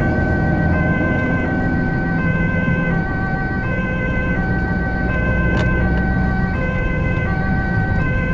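Ambulance two-tone siren alternating steadily between a high and a low note, heard from inside the cab over engine and road rumble.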